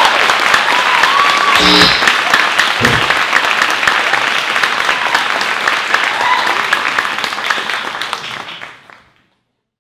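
Audience applauding, a dense patter of hand claps, with a couple of cheering whoops in the first two seconds. The applause fades out near the end.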